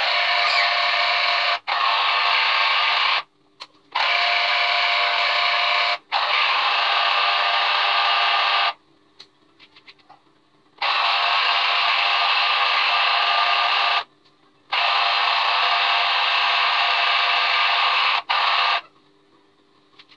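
Small electric citrus juicer motor spinning its reamer as orange halves are pressed down on it, a steady whir that starts and stops abruptly several times in spells of one to three seconds, with faint clicks in the pauses.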